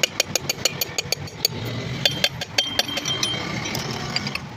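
Ratchet wrench clicking in two quick runs of about eight clicks a second, a short pause between them, then a few scattered clicks.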